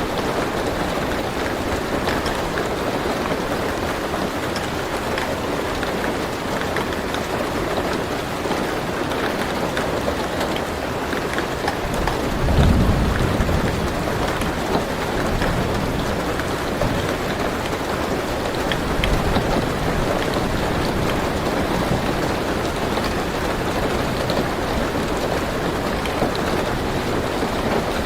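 Steady rain on a car roof, heard from inside the car, with a low rumble of thunder about halfway through and a fainter one a few seconds later.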